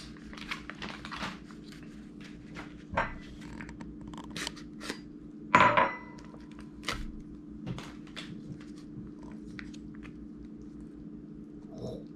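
Foil-laminate MRE retort pouch crinkling and tearing as it is ripped open by hand, a run of irregular short crackles with one louder rip about halfway through. A steady low hum runs underneath.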